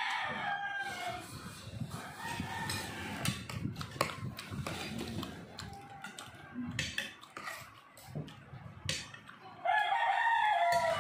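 Spoon and fork clinking and scraping on a ceramic dinner plate during a meal. A long pitched call sounds at the start and again, louder, near the end.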